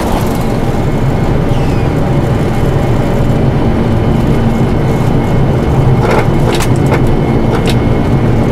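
Steady loud rumble of engine and airflow noise on a Boeing 747-400 freighter's flight deck, with a few sharp clicks about six to eight seconds in.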